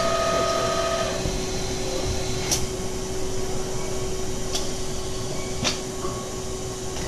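Catalytic converter shell end-cutting machine running with a steady hum. A high whine from the cut stops about a second in. Three sharp clicks follow as the machine finishes and moves the workpiece away.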